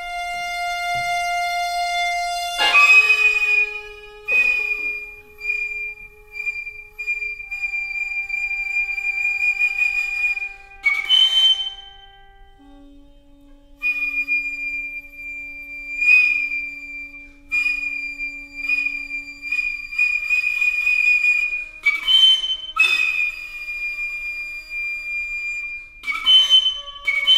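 Contemporary chamber music for Asian and Western winds: a nohkan flute plays a shrill, piercing high note, held and broken off several times with sharp breathy attacks, over quieter steady low tones from the reed instruments and sheng mouth organ. A held clarinet note opens the passage and gives way about two and a half seconds in to the first loud nohkan attack.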